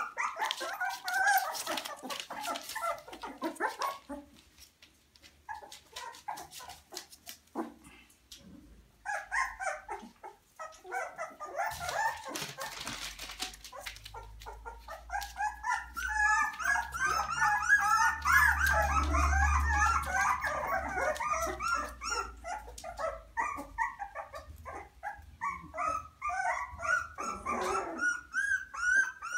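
Litter of 24-day-old beagle puppies crying in many short, high-pitched yelps and whines, several at once. The calls die down for a few seconds about four seconds in, leaving a few soft clicks, then pick up again and are busiest in the second half.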